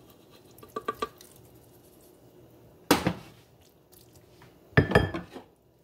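A wooden spoon and cookware knocking as macaroni is scraped from a stainless steel pot into a glass pie dish: a few light clicks about a second in, a sharp knock near three seconds, and a louder clatter of several knocks near five seconds.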